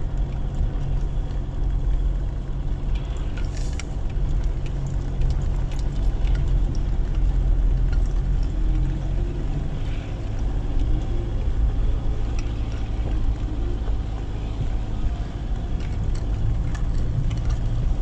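Toyota Hilux pickup driving slowly along a rutted dirt track: a steady low engine and tyre rumble, with a few short knocks and rattles.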